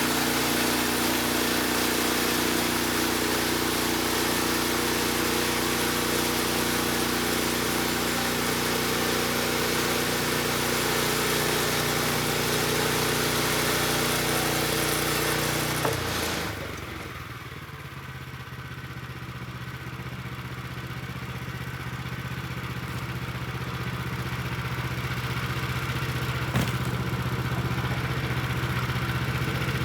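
Portable bandsaw mill's gas engine running at high speed while the band blade cuts through a red oak board. About sixteen seconds in, the cutting noise drops away and the engine settles to a lower, steady running note.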